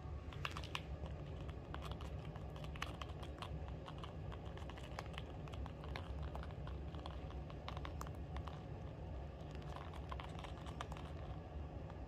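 Pet rabbits munching dry oat hay and dried flowers: a run of quick, irregular crisp clicks and crunches, thicker in places.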